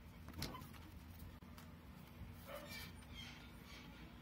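Faint handling of a cardboard album box and its inserts: a light knock about half a second in, then soft rustling. Later come a few short, faint high whines.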